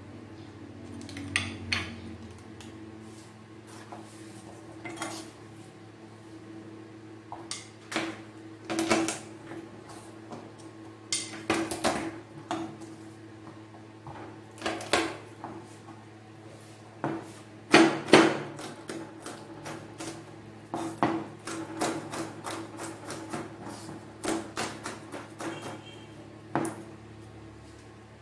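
Small bowls and dishes being set down and handled on a tabletop: irregular clinks and knocks, some in quick clusters, the loudest about halfway through, over a steady low hum.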